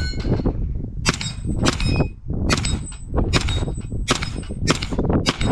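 Freedom Ordnance FX-9 9mm carbine firing a steady string of about seven shots, roughly two-thirds of a second apart. After several shots a steel target rings with a thin, high tone.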